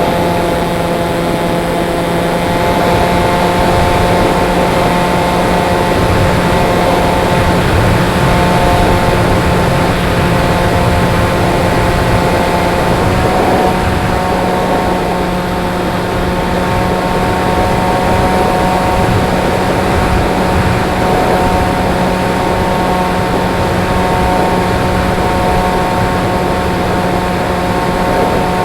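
Pusher motor and propeller of a model glider running steadily, with a constant droning whine over wind rush. The pitch steps slightly about halfway through.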